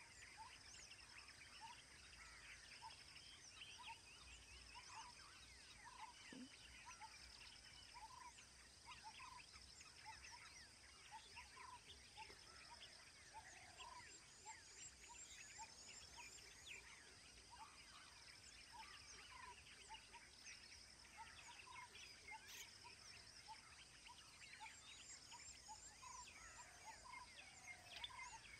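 Faint wild-habitat chorus of many birds chirping and calling, over a steady high insect trill. One short note repeats about once a second throughout.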